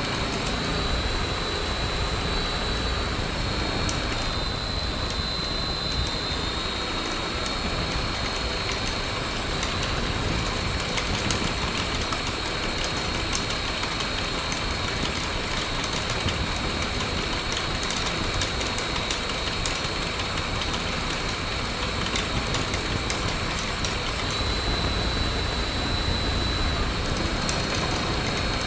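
Hacker A60-16L brushless electric motor on an 8S battery spinning a homemade six-blade carbon-fibre propeller at steady speed, with a steady high whine. A 6-32 bolt through one blade throws the prop out of balance, so the rig is shaking hard on its mount.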